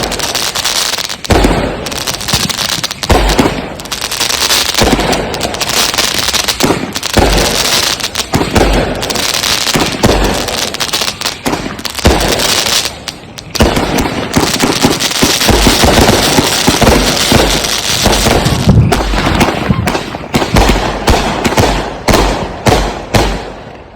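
Consumer firework cakes firing a rapid barrage of aerial shots: loud, closely spaced booms over continuous crackling, stopping just before the end.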